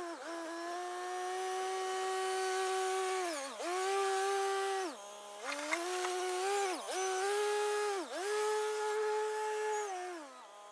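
Kioti CK3510SE compact diesel tractor running under load while dragging a box blade over gravel. Its high mechanical whine sags in pitch and recovers every second or two, about six times.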